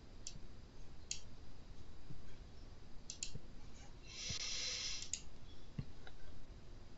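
Scattered, sharp computer clicks from a mouse and keyboard while a presentation problem is being sorted out, with a second-long burst of hiss about four seconds in.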